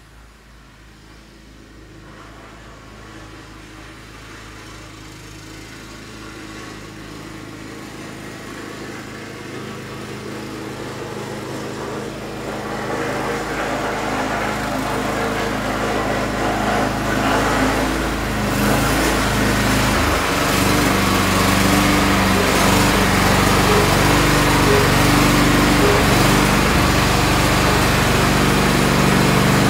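Tractor engine running at a steady speed, growing steadily louder over about the first twenty seconds, then holding steady and loud.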